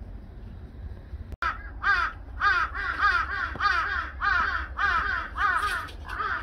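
A crow cawing over and over: about ten harsh caws at roughly two a second, starting about a second and a half in.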